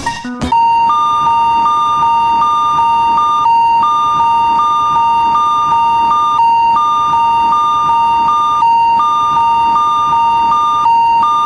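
Electronic railroad-crossing warning alarm: a loud, steady high beep with a slightly higher tone switching on and off several times a second. The higher tone comes in groups that repeat about every two and a half seconds, starting about half a second in.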